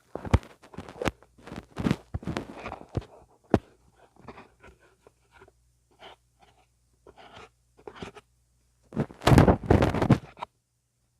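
Ear-cleaning ASMR on a mini microphone: an ear-cleaning tool scratching, rubbing and tapping on the mic in irregular crackly strokes, fainter in the middle and loudest in a dense burst of scraping about nine seconds in.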